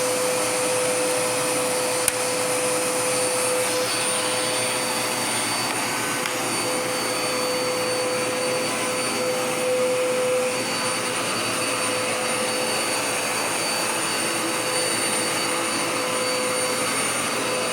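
Dirt Devil Power Max vacuum cleaner running steadily, a motor hum under a high whine and rushing air. A single sharp click about two seconds in.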